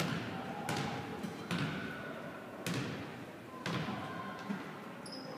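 Basketball bouncing on a hardwood gym floor, a thud about once a second, each one echoing through the large hall.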